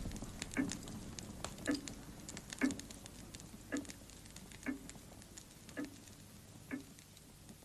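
Slow clock ticking, about one tick a second, growing fainter as it fades out.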